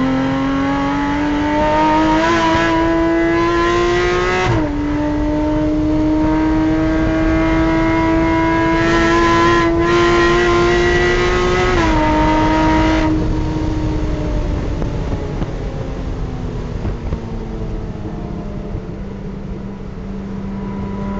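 Porsche Cayman race car's flat-six engine at full throttle, heard from inside the cockpit, its note climbing through the gears with two upshifts, about four and a half seconds and twelve seconds in. Then the throttle is lifted and the note falls as the car slows for a corner.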